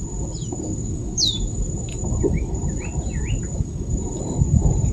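Insects droning on one steady high note, with a bird giving a single falling whistle about a second in and a few short chirps from other birds in the middle, over a low rumbling background noise.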